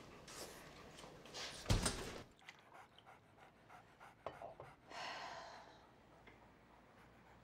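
A dog panting softly, with one dull thump a little under two seconds in.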